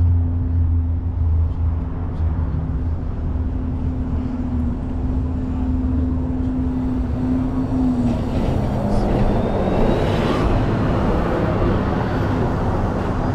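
Road traffic on a wide multi-lane street: a steady engine hum that dips slightly in pitch about eight seconds in, then a louder rush of cars passing.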